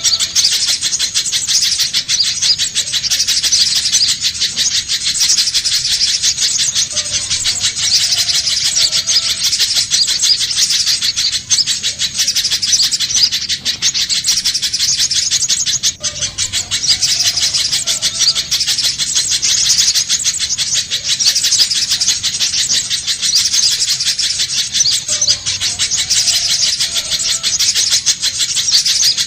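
Little spiderhunter (pijantung pisang) calling: a rapid, unbroken stream of high-pitched chipping notes, repeating in a loop every few seconds.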